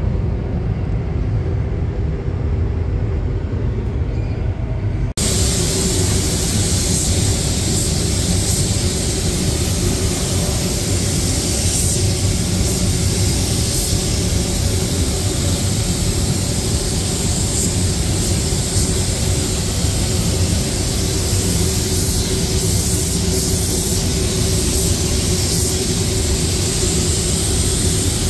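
A steady low rumble, then after a sudden cut about five seconds in, a loud, steady hissing rush of compressed air from a paint spray gun spraying paint inside a spray booth.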